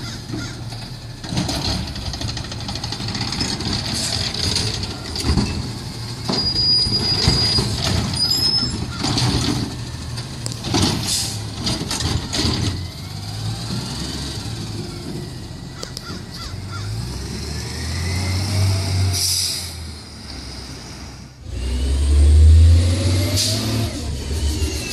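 Waste Management McNeilus ZR rear-loader garbage truck on an Autocar ACX chassis: clanks and knocks from the truck with air-brake hiss, then its natural-gas engine revs up as the truck pulls away, loudest near the end.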